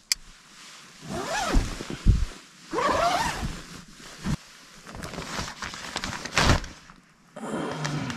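A zipper on camping gear being pulled in several separate strokes, with a few dull thumps between them.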